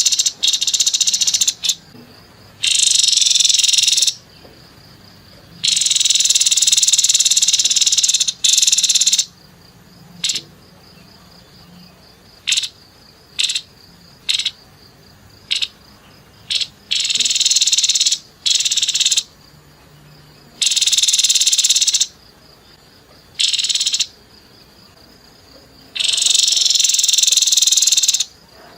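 Grey-headed babbler giving harsh, rapid call bursts ('nembak kasar'), each one to three seconds long, with short chips between them and brief gaps.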